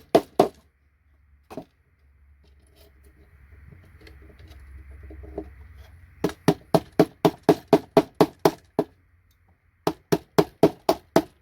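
Hammer striking a paint scraper wedged under a connector to break it off a computer circuit board: a few single knocks, a few seconds of scraping, then two quick runs of sharp taps, about five a second, until the connector's leg snaps.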